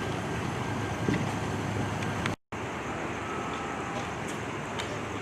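Steady outdoor street noise with vehicle engines running, and a few faint clicks. The sound cuts out for a moment about two and a half seconds in.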